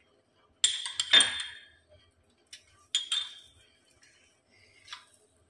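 Stainless-steel kitchenware clinking while crumbled bread is mixed with milk in a steel plate: a short cluster of sharp metallic clinks about a second in, then single clinks near three and five seconds.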